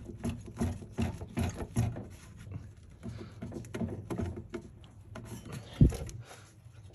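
Pliers clicking, scraping and knocking on the hose clip and the stuck bottom radiator hose at the water pump outlet as the crusty hose is worked loose: a run of short metal knocks with rubbing between them, and one louder thump near the end.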